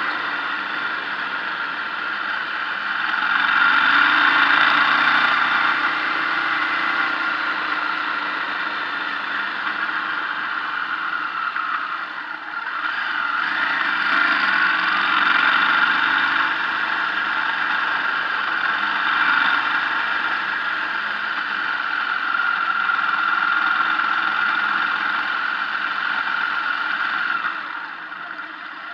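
Motorcycle engine running at road speed under steady wind rush on the microphone, the noise swelling a little twice and easing off near the end as the bike slows.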